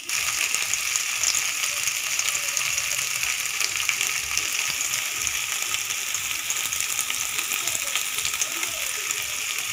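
Paneer cubes shallow-frying in hot oil in a kadai: a steady sizzle with fine crackling.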